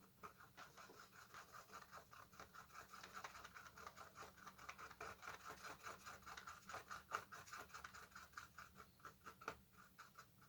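Faint, rapid scratching strokes, several a second and fairly even, of a small stick stirring and scraping two-part JB Weld epoxy on a mixing surface.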